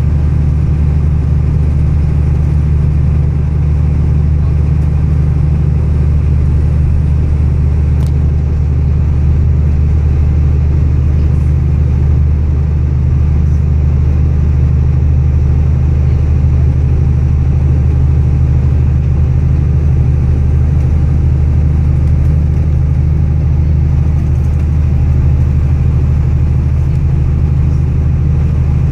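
Steady low rumble of road and engine noise heard from inside a moving vehicle, even in level throughout.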